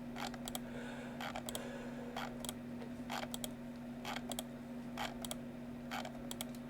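Sparse clicking at a computer: irregular single and paired clicks every half second to a second. A steady low hum runs underneath.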